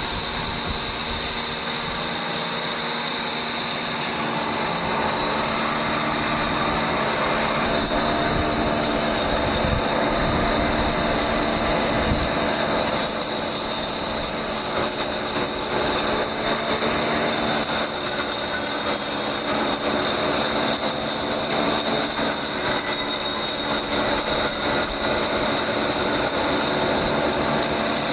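Horizontal sawmill machine running steadily, a continuous high hiss over a machine hum with several steady tones.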